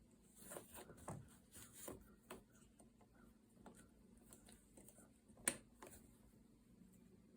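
Faint rustling and light clicks of stretchy loops being woven over and under the warp on a potholder loom, with one sharper click about five and a half seconds in.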